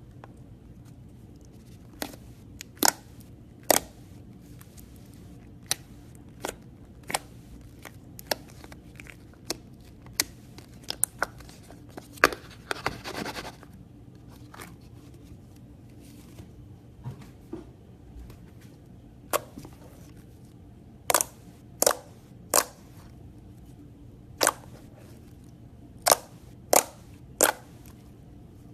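Slime being poked and squeezed by hand, giving sharp, irregular pops and clicks, several in quick groups of three near the end, with a brief crackly rustle about halfway through.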